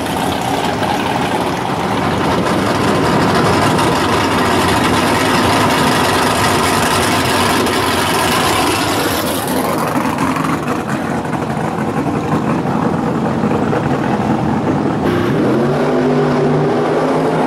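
Drag car engines running, with a rev that rises about nine to ten seconds in, and another engine climbing in pitch as it comes up near the end.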